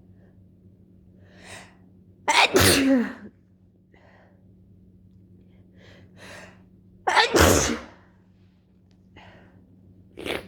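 A person with a head cold sneezing twice, wet, snotty sneezes, each led in by quieter catching breaths. A shorter sharp burst comes near the end.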